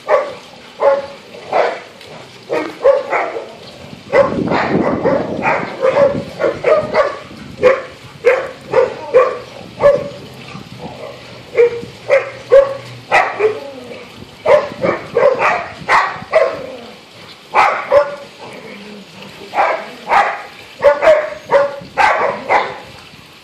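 A pack of dogs playing rough, barking in short loud barks every half-second to a second, with a lower, rougher stretch about four to seven seconds in.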